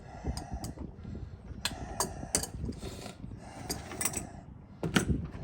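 Ratchet wrench worked in short bursts of rapid clicking, with sharp metal clinks of tools on bolts and brackets; the loudest clink comes near the end.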